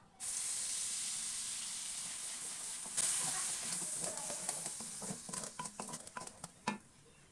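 Wet tomato and onion paste hitting hot oil in a wok: a loud sizzle starts suddenly, swells again about three seconds in, then dies down into crackling spatters and the scrape of a wooden spatula stirring the pan.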